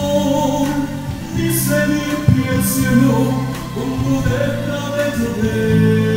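A man singing into a microphone over amplified backing music played through a PA speaker.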